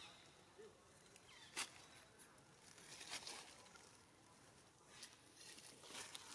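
Near silence: faint outdoor quiet broken by two brief soft rustling clicks about a second and a half apart, the kind made by macaques stepping over dry leaf litter and rocks.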